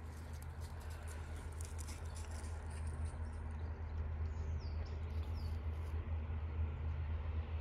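Footsteps crunching on frosty grass for the first few seconds, over a steady low rumble. A small bird gives two short falling chirps, about four and a half and five and a half seconds in.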